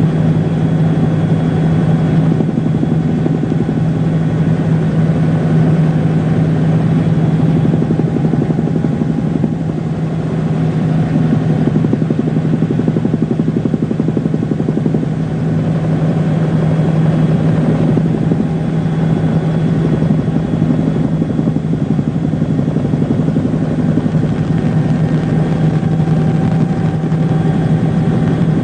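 An engine running steadily, with a constant low hum and no bangs or changes in pitch.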